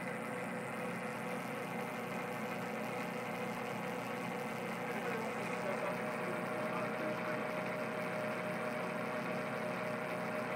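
South Bend 9A metal lathe running steadily under power during a thread-cutting pass, its motor and gear train giving a constant hum with a few steady tones.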